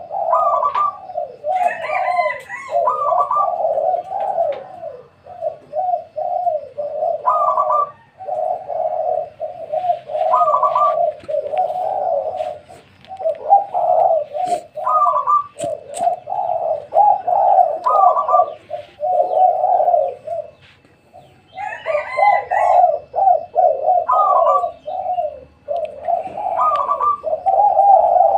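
Spotted doves cooing in near-continuous, repeated coo phrases, with a few short higher chirps from another bird.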